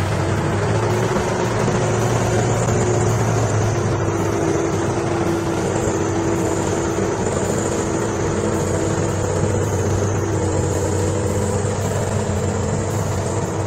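A heavy vehicle's engine running steadily, with an even, unbroken drone.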